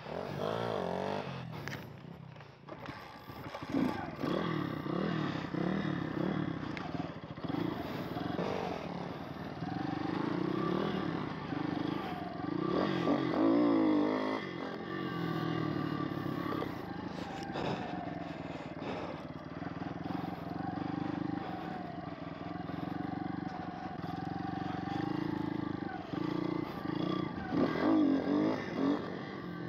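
Small pit bike engine being ridden, revving up and down repeatedly as the throttle is opened and closed, with quick blips about halfway through and a steadier run for several seconds after.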